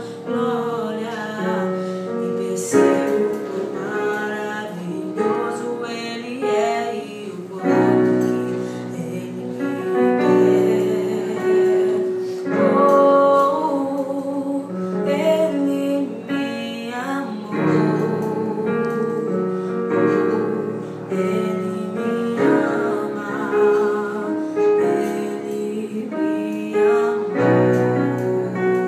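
A high, boyish voice singing a song over piano accompaniment.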